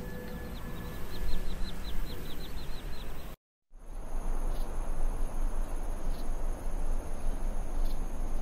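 Outdoor nature ambience. A quick run of short high chirps for about three seconds is followed by a brief dropout. Then come a steady high insect drone and a background hiss.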